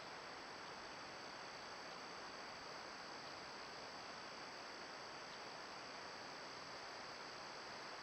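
Steady faint hiss from a trail camera's microphone, with a continuous high insect drone running through it; no bird calls are heard.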